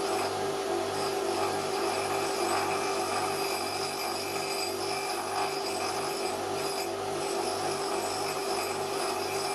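Titan 200mm bench grinder running while one of its wheels is dressed with a wheel dressing tool: a steady motor hum with a regular low pulsing throb and a grinding hiss of the tool against the abrasive wheel.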